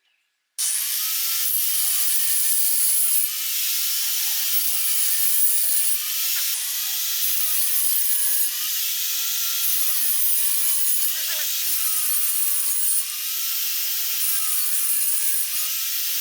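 Angle grinder cutting into wood, starting suddenly about half a second in and running steadily, with its pitch rising and falling in a regular cycle every couple of seconds as the cut goes back and forth.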